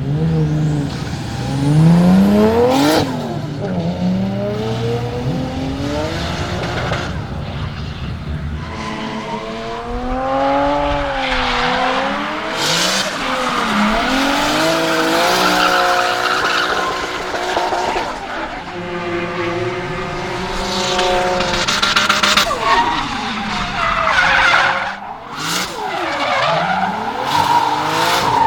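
Nissan Silvia S14 with a swapped RB26DET 2.6-litre twin-turbo straight-six drifting: the engine revs rise and fall over and over while the tyres squeal, with several short sharp noises, more of them near the end.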